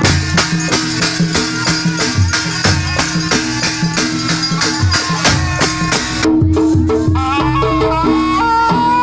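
Jaranan Buto music from a Javanese ensemble: a fast, even pattern of drum strokes and rattling percussion. About six seconds in, the rattling drops out and a reed-pipe melody starts over the drums.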